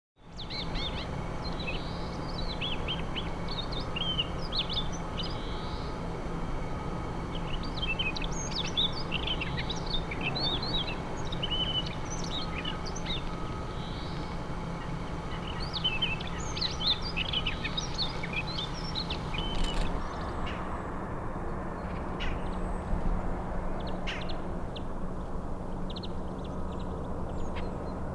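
Small songbirds chirping and twittering in quick, varied notes, thinning out after about twenty seconds, over a steady low hum.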